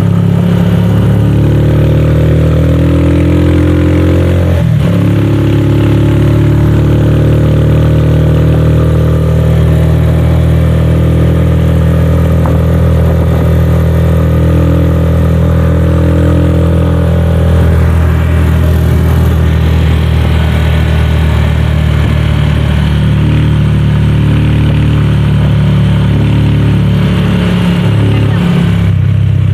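Engine drone of a small motor vehicle heard from inside its passenger cab while riding along, loud and continuous, its pitch shifting now and then as it changes speed, with a brief dip about four and a half seconds in.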